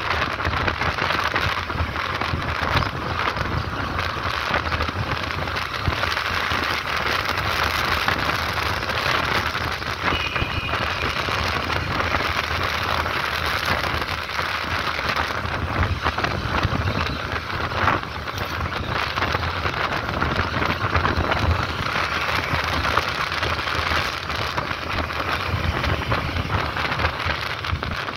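Steady rushing wind noise on the microphone of a camera riding on a moving motorcycle, over the low rumble of the bike and the road.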